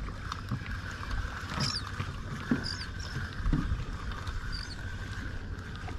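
Fishing boat at sea with its engine running steadily: a constant hum over a low rumble, with scattered knocks and a few faint high squeaks.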